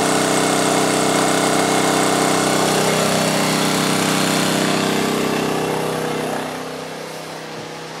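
WEN 56200i 2000-watt inverter generator's small four-stroke engine running steadily and hard under a heavy load. About six seconds in, it goes noticeably quieter and lower.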